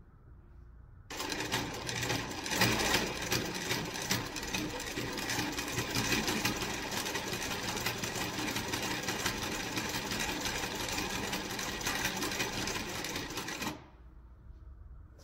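Juita JT20U-63Z industrial zigzag sewing machine sewing through a folded fabric test piece, a steady, even run of rapid needle strokes. It starts suddenly about a second in and stops sharply near the end.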